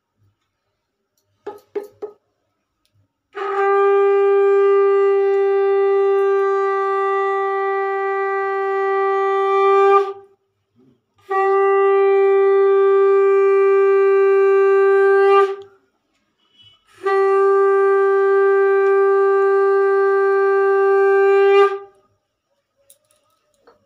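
Conch shell (shankha) blown three times in the Hindu ritual manner, each a loud, long, steady note of one pitch, the first the longest at about six seconds. A few small clinks of puja vessels come just before the first blast.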